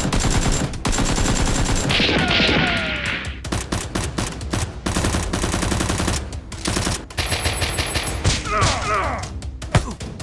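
Rapid bursts of automatic gunfire sound effects, one volley after another with short breaks, dubbed in as the sound of toy blasters firing.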